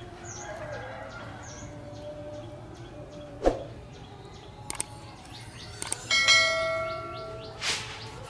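A knife cuts through a tomato and knocks once on a wooden chopping board, then a subscribe-button sound effect plays: mouse clicks followed by a ringing notification-bell ding and a short whoosh. Birds chirp faintly in the background.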